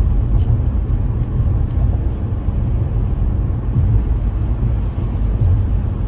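Steady low rumble of a car, heard from inside the cabin.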